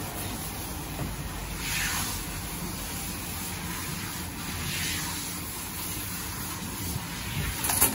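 Water spraying from a self-serve dog-wash hose: a steady hiss that swells briefly about two seconds in and again near five seconds. A quick run of sharp knocks comes right at the end.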